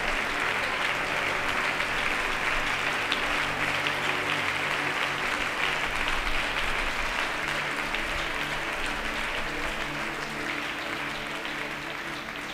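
Congregation clapping and applauding, with soft held music chords underneath; the applause slowly dies down toward the end.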